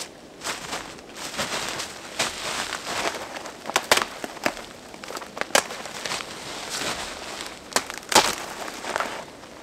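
Dry spruce twigs snapping and branches rustling as a person pushes through dense low branches on foot. The snaps are sharp and irregular, the loudest about four seconds in and again about eight seconds in.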